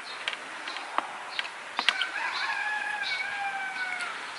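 A rooster crowing once, a long call of about two seconds that falls slightly in pitch at the end, after a few sharp clicks.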